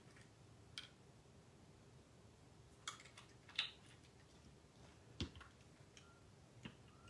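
Near quiet, with about five faint clicks and taps: small plastic alcohol ink bottles being handled and set down on a tabletop.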